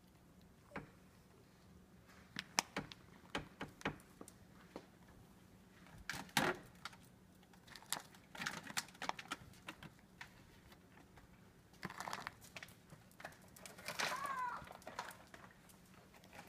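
Foil cat-treat pouch crinkling and rustling, with irregular crisp clicks and crunches as a cat eats treats out of it. A short high call that rises and falls comes near the end.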